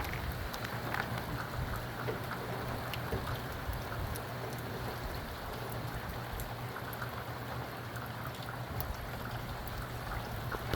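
Steady rain falling, with scattered sharp drops ticking on nearby surfaces over a steady low hum.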